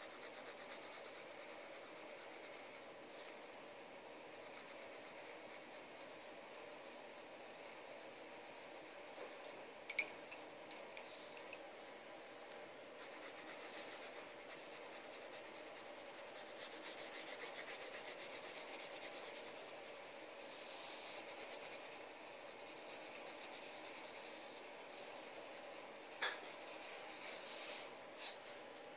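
Coloured pencil scratching on paper in quick shading strokes, which grow louder and denser from about halfway through. A few sharp clicks about a third of the way in.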